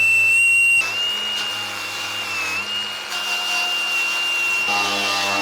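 Angle grinder running with a steady high whine. Just under a second in, its pitch dips slightly and a rough grinding noise comes in as it works the steel, growing louder near the end.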